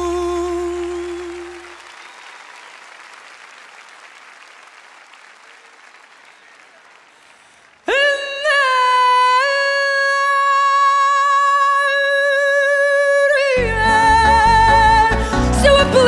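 Background music. A song fades out, leaving a faint hiss for several seconds. About eight seconds in, a singer comes in abruptly with a long held note with vibrato, and some five seconds later the band joins in under the voice.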